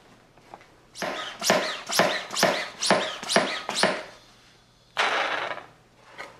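Hand-operated vacuum fluid-extractor pump being pumped to draw old fork oil out of a motorcycle fork tube: about seven quick strokes of its plunger, roughly two a second, then a hiss of air lasting about a second near the end.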